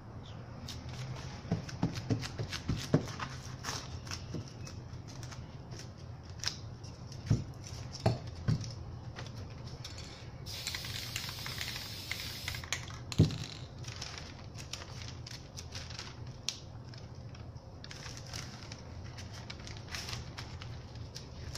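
Spray paint can hissing in one burst of about two seconds, roughly halfway through, amid scattered sharp clicks and knocks from the painting work.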